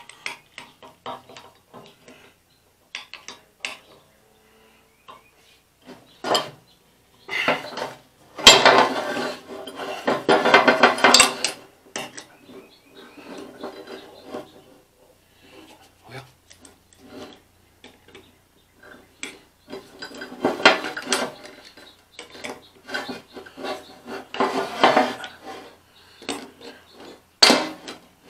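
Metal parts of a frost-free hydrant's handle and lever linkage clinking, clanking and scraping as they are handled and worked apart on a saw table. The sounds are irregular handling noises, with a busier stretch of clatter about a third of the way in and a few sharp clanks near the end.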